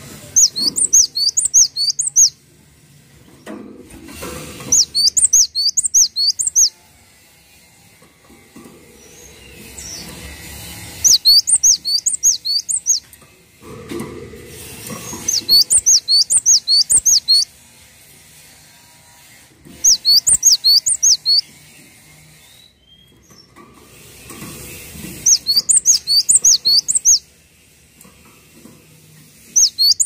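Cinereous tit (gelatik batu) singing: about seven bursts of rapid, high, repeated two-note phrases, each burst lasting about two seconds, with short pauses between.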